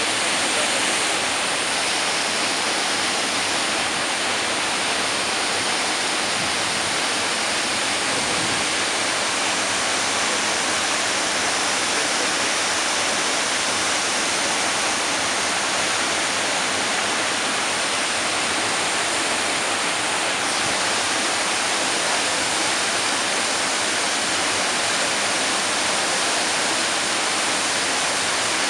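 Waterfall: falling water making a steady, unbroken rush of noise, heavy in the hiss and with little low rumble.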